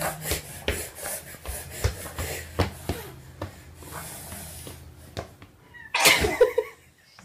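Scuffing, rustling and small knocks as a toddler and a cat move about the floor. About six seconds in, a short loud vocal burst from the cat.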